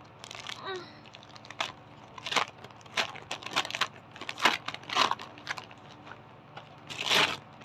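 Gift wrapping being torn and crumpled open by hand: a series of short crinkling rips, with a longer one near the end.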